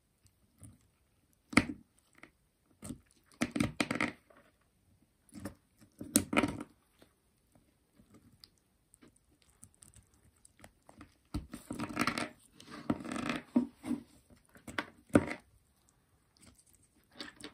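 Slimy blue gel block of a Treasure X toy being sawn into with a yellow plastic toy saw and torn apart by gloved fingers. The tearing and crackling comes in short irregular bursts with quiet gaps, most of it in the second half.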